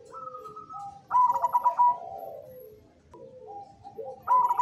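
Zebra dove (perkutut) cooing in its song. About a second in comes a quick run of rapid stuttering notes, followed by lower, falling coos. A second phrase begins near the end.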